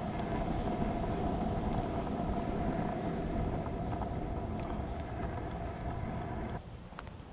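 Pro scooter's wheels rolling over rough asphalt: a steady rumble with a faint hum, which drops away sharply about six and a half seconds in, followed by a faint click.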